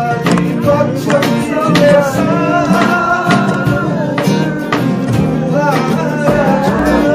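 Acoustic guitar strummed steadily while people sing along.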